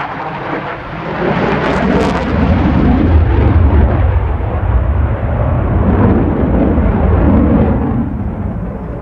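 JAS 39C Gripen fighter jet passing by, its RM12 turbofan engine making a deep rumble that swells about a second in, stays loud for several seconds, and fades near the end.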